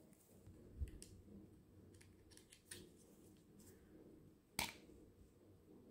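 Quiet handling sounds of a Remington MB345C beard trimmer: a soft low bump as it is picked up, then a few light clicks. About four and a half seconds in, one sharp click as the charging cable's plug is pushed into the trimmer's socket.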